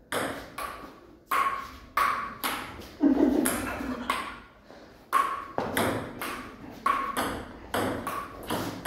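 Table tennis rally: the ball clicks sharply off the bats and the table in a quick, uneven run of about two strikes a second.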